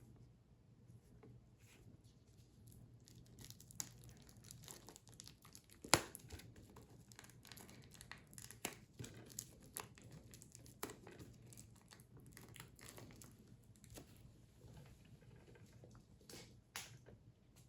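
Plastic shrink-wrap being torn and peeled off a Blu-ray steelbook case, crinkling and crackling irregularly, with one sharp snap about six seconds in.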